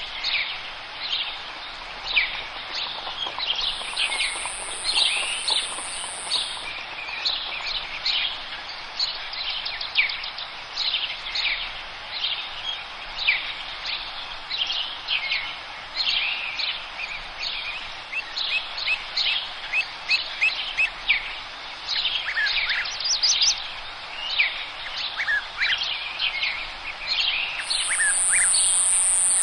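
A chorus of forest birds chirping and singing, many short overlapping calls and trills. A steady high-pitched buzz rises over them twice for a few seconds: about four seconds in, and near the end.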